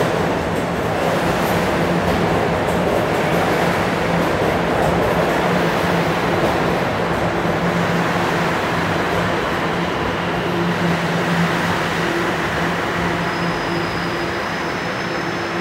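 Toronto TTC Line 1 subway train running at the station: a steady rumble with a low hum, and a faint high whine that comes in near the end.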